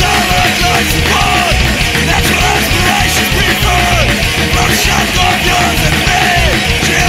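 Punk rock song playing loudly, with shouted vocals over the band.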